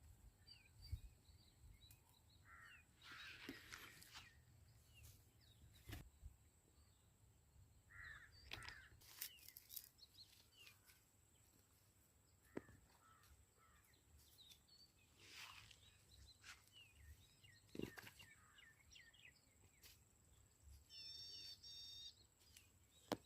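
Faint outdoor ambience: scattered bird calls and chirps with a few sharp clicks and knocks, and a short high-pitched call near the end.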